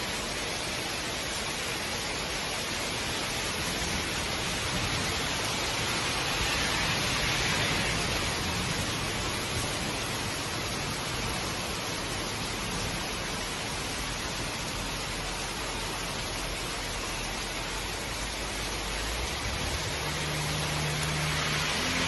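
Heavy rain falling steadily on trees, grass and pavement: a dense, even hiss that swells a little now and then. A low hum comes in near the end.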